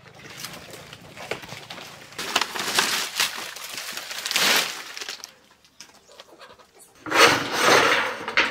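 Dry palm-leaf thatch rustling and crackling as bundles of it are handled and dropped onto a pile. A pause follows, then a louder scraping rattle near the end as roofing is pulled off a small coop.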